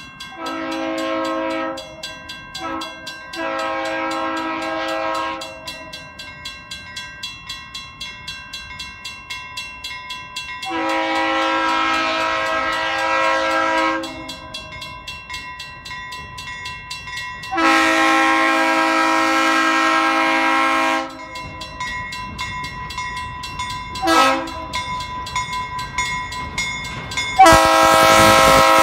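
Diesel switcher locomotive's air horn sounding a chord in repeated blasts as the train approaches, ending in long, long, short, long, the pattern for a grade crossing, with the last blast running on. A bell rings rhythmically underneath.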